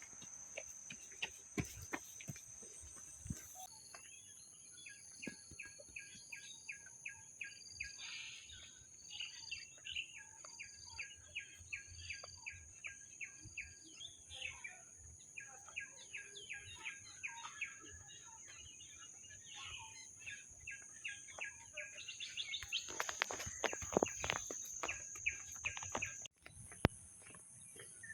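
Insects droning with a steady high-pitched buzz, while a bird sings long runs of rapid repeated chirps. Near the end a louder burst of noise comes in and then cuts off suddenly.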